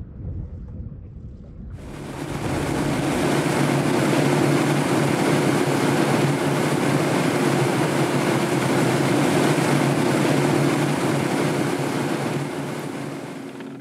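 Motorboat underway at speed: a steady outboard engine drone over rushing water and wind noise. It cuts in abruptly about two seconds in and eases off slightly near the end.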